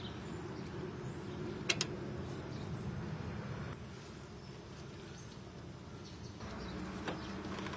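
Outdoor background noise with faint bird chirps and a sharp double click about two seconds in.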